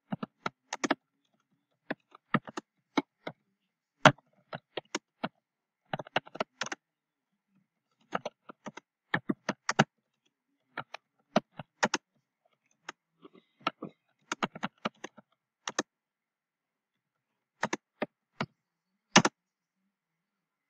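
Typing on a computer keyboard: single keystrokes in uneven clusters, with short pauses between words.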